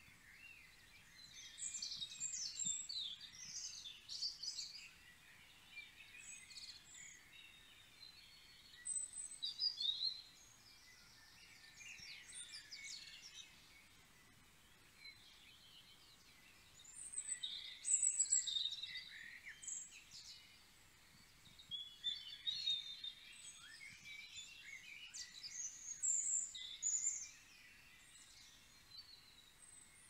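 Songbirds singing from the trees in bouts of quick, high, twittering phrases a few seconds long, with quieter gaps between the bouts.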